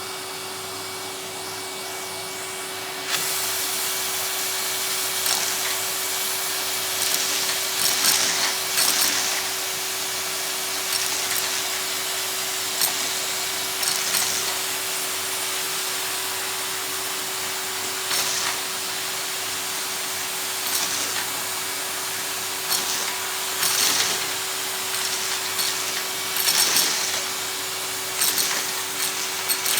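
Vacuum cleaner running steadily and sucking up a pile of hard custard apple seeds. About three seconds in the sound grows louder and rougher, with repeated short bursts of clatter as seeds go up the nozzle.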